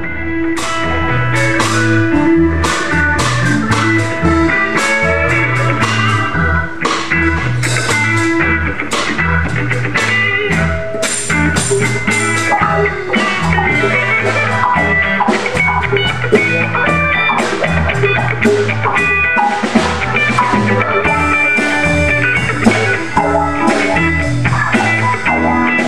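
Live band playing an instrumental funk-blues groove: electric guitar over a repeating bass guitar line and a steady drum kit beat.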